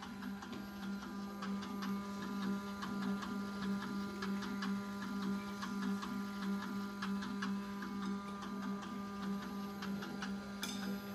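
Control moment gyro running: a steady low hum from its spinning flywheel and motor drives, with regular ticking and an even pulsing as the gimbal jitters back and forth in a steady beat. The gimbal is oscillating because the PID gains are too high and the controller output is saturating. A sharper click comes near the end.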